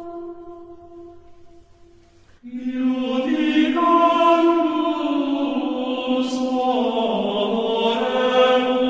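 Background choral music: voices chanting long held notes. One chord dies away and a new, fuller one enters about two and a half seconds in.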